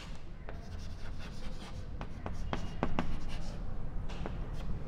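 Chalk writing on a chalkboard: an irregular run of short taps and scratches as a word is written.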